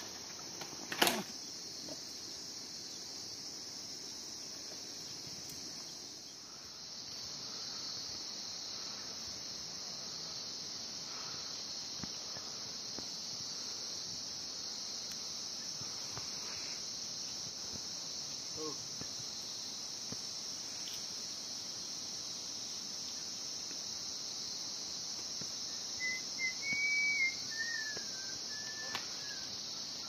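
Steady high-pitched chorus of insects chirring, with a sharp knock about a second in and a short whistle-like call that glides up and down near the end.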